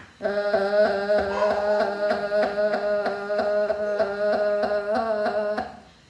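A woman's voice holding one long note, shaken into a fast pulse about five times a second as her fists beat on her back. The vocalising is done on purpose during the self-percussion, so the blows make the voice vibrate.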